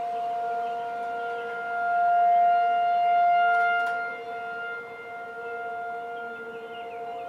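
Outdoor tornado warning siren sounding a steady tone made of two pitches at once. It swells louder about two seconds in and fades back down about four seconds in.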